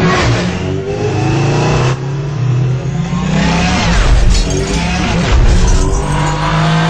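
Sci-fi light cycle engine sound effects: electronic engine whines sweeping up and down in pitch as the cycles race and pass, over a deep steady hum.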